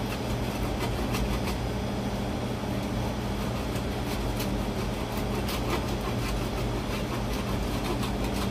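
A steady low mechanical hum runs throughout, with faint, irregular scraping strokes of Parmesan being grated on a metal box grater.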